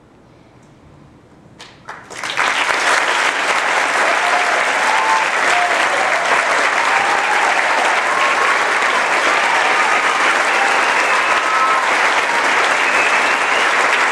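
A couple of first claps, then about two seconds in an audience breaks into loud, sustained applause, with a few cheering voices over it.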